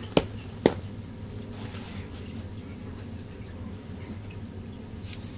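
Two sharp clicks about half a second apart, then a low steady hum with a few faint ticks.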